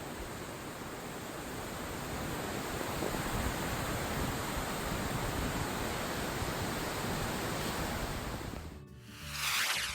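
Steady, even roar of falling water from a waterfall. It cuts off suddenly about nine seconds in and music begins.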